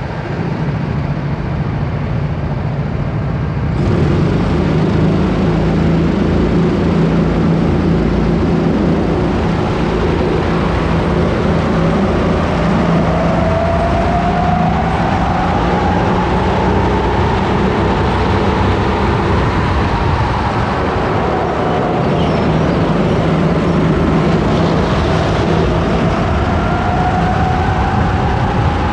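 Onboard sound of a Sodi rental racing kart's engine at race pace, its note rising and falling with the throttle through the corners, over a rush of wind and road noise. About four seconds in the sound grows suddenly louder and fuller as the karts get going.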